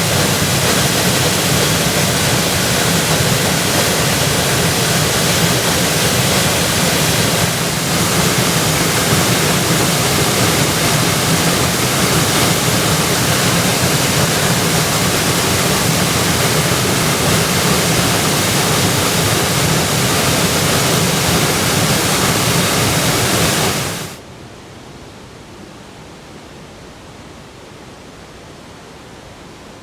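Waterfall rushing loudly, a steady, even noise of falling water. Near the end it cuts off abruptly to a much quieter steady rush.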